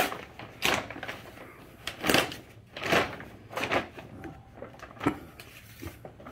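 Brown paper gift bag rustling and crinkling in a series of short rustles as a hand rummages inside it.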